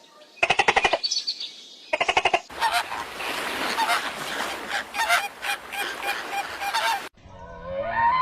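Animal calls: two short, rapid rattling bursts, then a fast run of repeated calls over a hissy background, cut off abruptly about seven seconds in.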